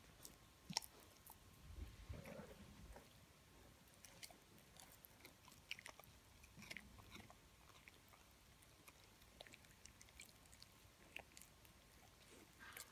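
Chow chow gnawing and chewing a hard chew stick: faint, irregular crunches and clicks of teeth on the chew, with a few soft low thuds about two seconds in.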